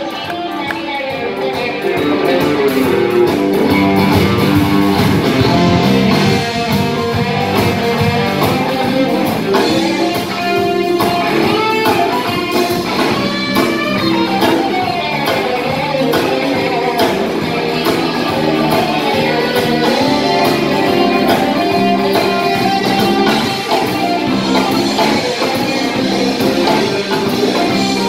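Live amplified rock band playing: two electric guitars, an electric bass and a Tama drum kit. The band gets louder about two seconds in.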